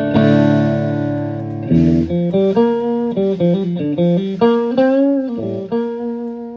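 Stratocaster electric guitar through a Klon Centaur–style overdrive pedal into a Fender Twin Reverb–style amp: a chord struck and left ringing, then a single-note lick with a bent, wavering note, ending on a held note that fades.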